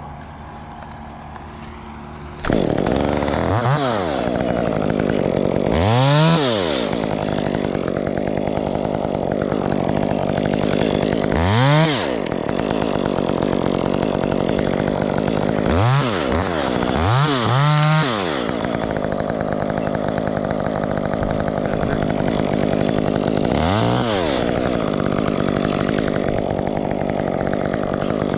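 Gas chainsaw starts up about two and a half seconds in and runs loudly, revved up and back down again and again.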